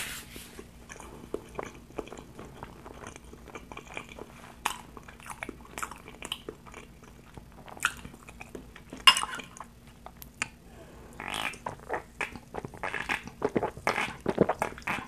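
Close-miked chewing and wet mouth clicks of a person eating spicy instant noodles, a scatter of short smacks. Near the end come denser mouth sounds as she drinks from a can of sparkling water.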